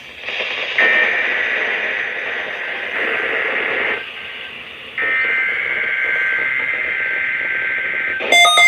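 NOAA Weather Radio SAME header data tones for a Required Weekly Test, heard over radio static: buzzy two-tone digital bursts, each about three seconds long, with a one-second pause between them. Near the end a loud beeping alarm starts, a weather alert radio being activated by the header.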